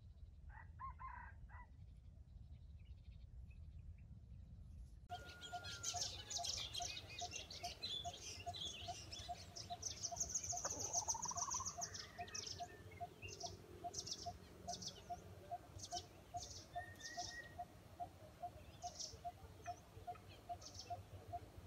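Outdoor birdsong: after a few short calls, many high chirps start abruptly about five seconds in over a steady note repeating about twice a second. A brief rising call comes near the middle, among the sounds of chickens and wild birds.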